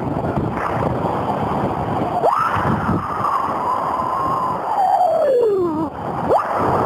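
Strong wind buffeting the microphone during a paraglider flight. About two seconds in, a whistling tone rises sharply, holds, then slides slowly down over about three seconds; a second short rising whistle comes near the end.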